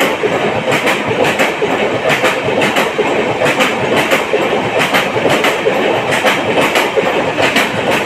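LHB passenger coaches of an express train running through a station at speed: a steady rumble with a rhythmic clickety-clack of wheels striking rail joints in regular pairs of clicks, the last coach going by near the end.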